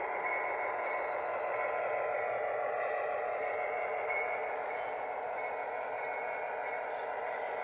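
Lionel O gauge Missouri Pacific RS-11 model diesel locomotive running on three-rail track: a steady hum and rumble from the moving train.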